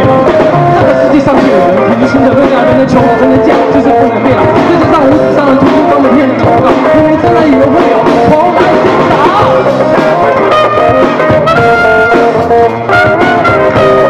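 A rock band playing live through a PA: electric guitars, bass guitar and drum kit with a singer on a handheld microphone, and a trumpet joining in.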